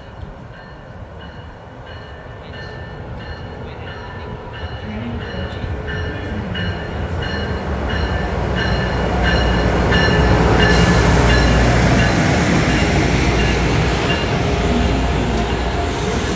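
Amtrak Acela Express high-speed electric trainset pulling into a station: its approach grows steadily louder for about ten seconds, then the power car and coaches roll past with a steady, loud rolling noise.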